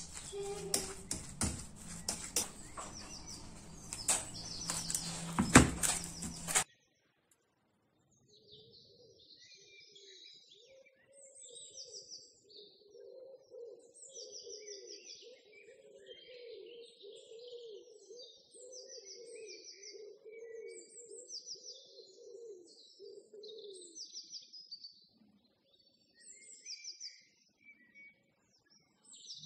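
A metal utensil scrapes and knocks against an aluminium pan as mashed potato is stirred, with a sharp knock just before the sound cuts off suddenly. After a short silence, small birds chirp and trill for the rest, over a lower wavering sound.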